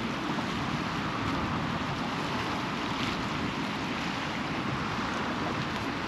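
Steady rush of wind buffeting the microphone, mixed with the wash of sea surf.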